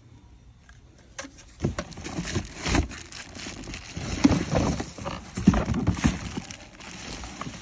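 Unpacking noise: the pressure washer's cardboard box and packed plastic parts being handled, rustling, scraping and knocking together. It starts about a second in, with a couple of sharper knocks in the middle.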